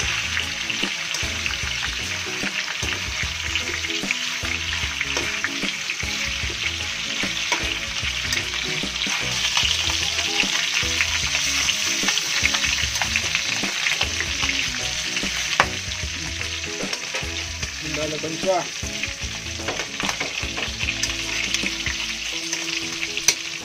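Boiled beef brisket slices sizzling as they fry in hot oil in a wok, with frequent clicks and scrapes of metal tongs turning the pieces.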